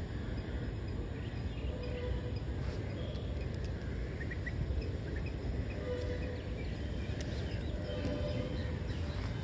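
Steady wind rumbling on the microphone, with a few faint bird chirps about halfway through.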